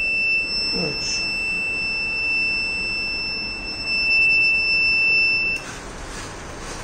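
The crack-detection robot's alert buzzer sounds a steady high-pitched tone, signalling a detected track crack. It cuts off suddenly about five and a half seconds in.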